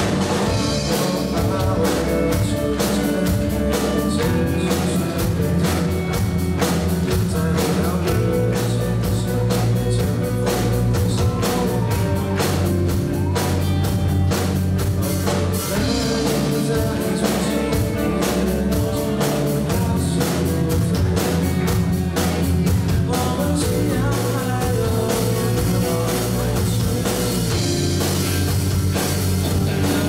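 Live rock band playing a song: drum kit beating steadily over electric guitars, bass guitar and keyboard.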